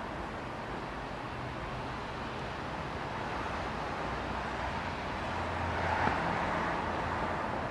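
Steady hum of road traffic, swelling a little about six seconds in.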